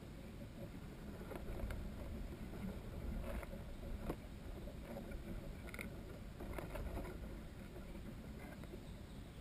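Faint outdoor ambience: a low rumble with scattered faint clicks and ticks.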